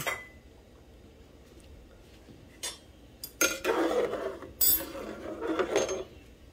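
A metal slotted spatula stirring soup in a pot, scraping and clinking against the pot in strokes about a second apart. The stirring starts about halfway through, after a quieter stretch.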